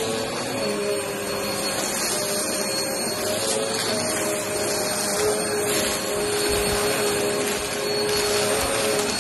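Upright bagless vacuum cleaner running steadily on carpet, its motor hum wavering slightly in pitch as it is pushed back and forth. It sucks up small scattered bits of debris, with faint crackles as they go up.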